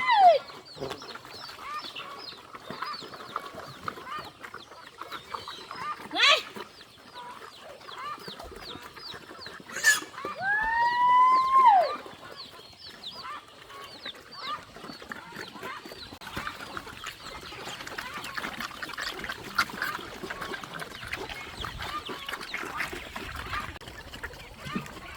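Rooster crowing: the tail of one crow right at the start and a full, arching crow of about two seconds about ten seconds in. Many faint short chirps run throughout, with a couple of sharp knocks.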